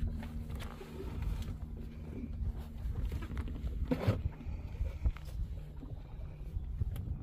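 Tour boat's motor running, its steady hum fading about two seconds in, over a low rumble of wind and water. A single knock about four seconds in.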